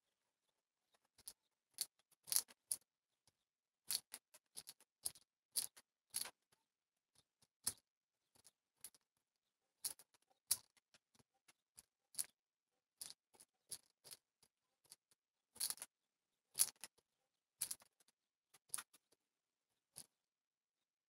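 Irregular sharp clicks and ticks from a pigeon moving about a grain bowl on a wooden ledge, one to three a second with pauses between.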